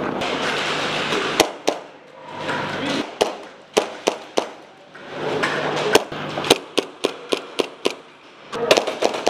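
Airsoft guns firing single shots in close quarters: a string of sharp cracks at irregular intervals, coming faster in the second half.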